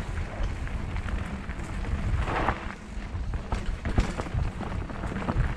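Wind buffeting the microphone of a mountain bike ride on a dirt singletrack: a heavy low rumble with the bike rattling and clicking over bumps. There is a short hiss a little past two seconds and a sharp knock about four seconds in.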